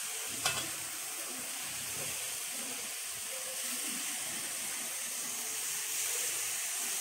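Onions and tomatoes sizzling steadily in oil in an aluminium kadai, with one short knock about half a second in.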